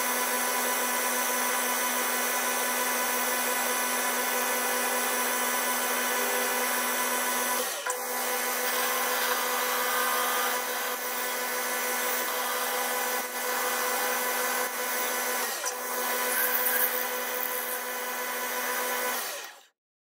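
Boxford lathe running steadily, its motor and drive giving a constant hum, while a centre drill and then a twist drill bore into an aluminium piston blank spinning in the chuck. The steady running breaks briefly twice and stops suddenly just before the end.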